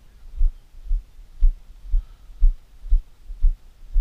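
Dull low thumps at an even pace of about two a second: footfalls jolting a body-worn camera as its wearer walks.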